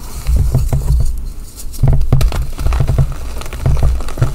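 Hands squeezing and crushing dried reformed gym chalk, which crunches and crumbles into powder in a run of irregular crunches with fine crackles.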